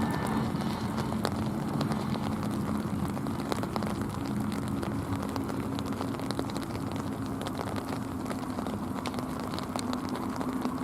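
Cessna Citation CJ2+ business jet's engines running steadily at low power, a continuous hum slowly fading, with scattered crackling clicks over it.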